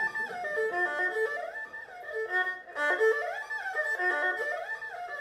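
Erhu bowed in a slurred arpeggio exercise: notes of a broken chord stepping up and down in repeated runs, several notes to one bow, with audible slides between some notes.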